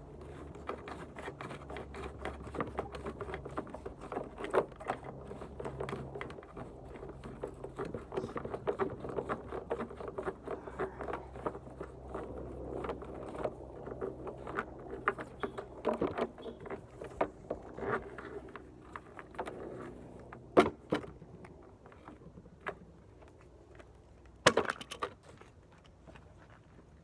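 Rummaging through scrap in a dumpster: a long run of small clinks and rattles as pieces of metal and debris are handled and shifted, with two sharp louder knocks, one about twenty seconds in and one near the end.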